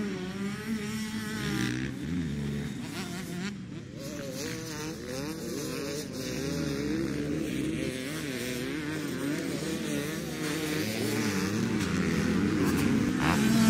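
Motocross dirt bike engines revving up and down under throttle, several at once, with the pitch rising and falling as the riders work over the track. The sound grows louder near the end as two bikes pass close by.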